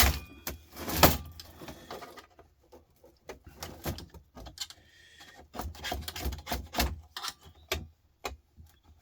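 Hand tools knocking, clicking and scraping on a desktop computer power supply during dismantling, as a stuck part is worked loose. Two sharp knocks come in the first second, followed by lighter irregular clicks and taps.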